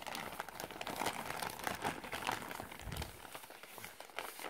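Plastic mailing bag crinkling and rustling as a boxed phone is worked out of it: a dense run of small crackles.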